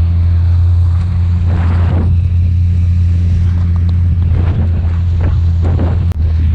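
Tohatsu 20 hp outboard motor running steadily at speed, pushing an inflatable boat through choppy water, with water rushing along the hull and wind buffeting the microphone.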